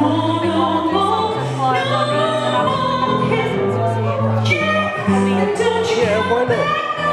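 Female jazz singer singing into a handheld microphone, accompanied by an electric guitar picking out a bass line of separate low notes.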